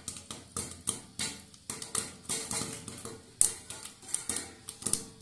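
Popcorn kernels popping in hot oil inside a covered pot: irregular sharp pops, several each second, the loudest about three and a half seconds in.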